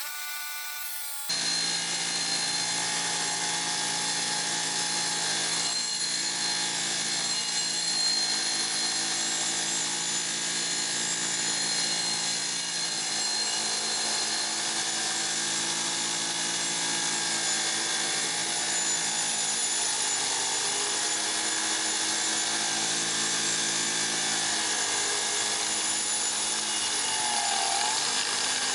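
Electric power tool running steadily, starting abruptly about a second in, its motor pitch dipping briefly a couple of times as it is loaded.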